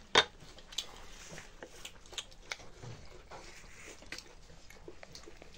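Close-up eating sounds: chewing and lip smacks with scattered small clicks as fingers work rice and curry on a steel plate, the sharpest click about a quarter second in.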